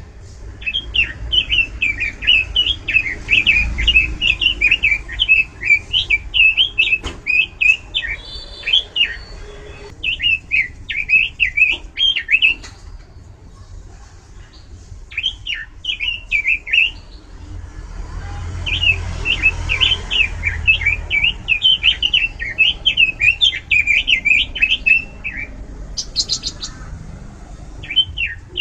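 Pekin robin singing loudly in long, fast runs of high warbling notes, broken by a few short pauses.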